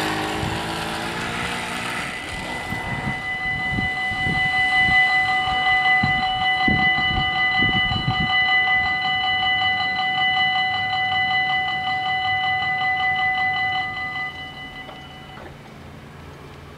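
A moped passes close by at the start. About three seconds in, the level crossing's warning bells start ringing, a rapid steady ringing that is the loudest sound here, as the lights flash and the barriers lower. The bells stop about fourteen to fifteen seconds in, once the barriers are down.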